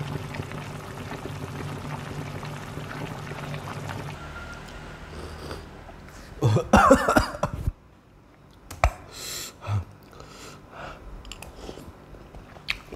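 Mukbang eating of meatballs in hot chili broth: a steady low hum for the first few seconds, then a loud burst of slurping about six and a half seconds in, followed by scattered chewing, spoon clicks and blowing on the hot broth.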